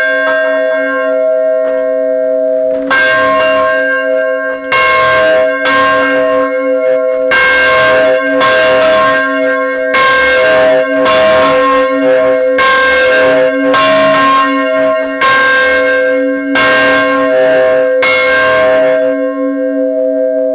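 1817 church bell swinging in its white oak cradle, its clapper striking again and again in loose pairs, each stroke ringing on over the last. The strikes stop about a second and a half before the end and the bell keeps humming.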